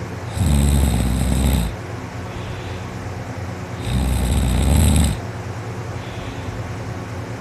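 Heavy snoring that sounds like a tractor: two long, loud snores about three and a half seconds apart, each lasting just over a second.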